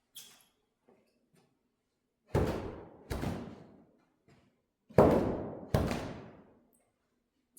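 Car doors being shut: four heavy slams in two pairs, each ringing out in a long echo.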